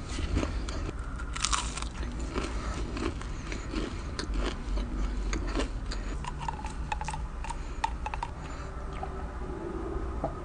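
Biting and chewing crisp homemade fried churros: crackly crunches that are dense at first, with a loud crunch about a second and a half in, then thin out into softer chewing.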